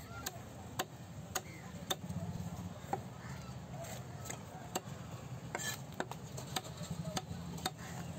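Large knife chopping a trevally fillet into slices, the blade knocking sharply on a wooden chopping block about once or twice a second, over a steady low background hum.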